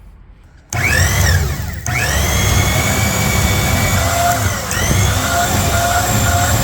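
Electric motor of a StripMeister wire-stripping machine starting up suddenly under a second in, whining as it spins up, then running steadily with a high whine; its pitch dips briefly twice.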